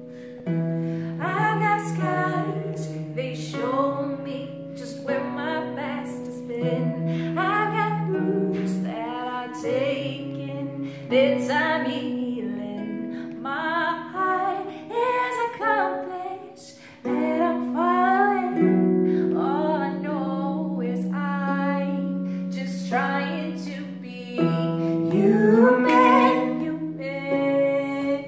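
A woman singing with a concert harp accompanying her, plucked harp notes and chords ringing under her voice.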